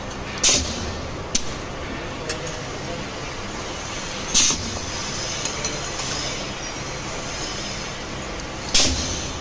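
Pneumatic ring butt welding machine cycling: three short, sharp bursts of compressed-air hiss, roughly every four and a half seconds, as its air cylinders work the clamps for each weld, with lighter clicks of the clamps and wire ring between.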